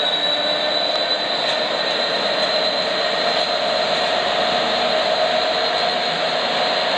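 GB Railfreight Class 66 diesel locomotive's V12 two-stroke engine running steadily under power as it hauls a loaded coal train past, with a high whine that rises slightly over a lower steady drone.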